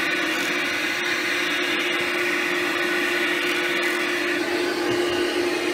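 Rug Doctor carpet cleaner's vacuum motor running steadily during a rinse of cloth upholstery: an even hum with a broad hiss.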